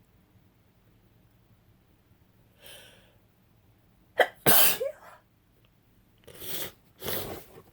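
A woman sneezing with a head cold: a short intake of breath, then one loud, sharp sneeze about four seconds in, followed by two shorter breathy bursts near the end.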